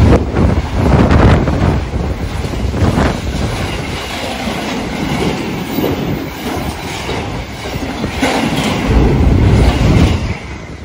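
Container freight train's flat wagons rolling past close by: a continuous rumble with the wheels clattering over the rail joints. The noise drops away at the very end.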